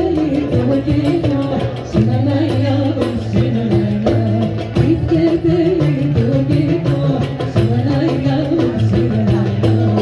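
Middle Eastern folk-style music: a wavering, ornamented melody over a steady bass line, with hand percussion.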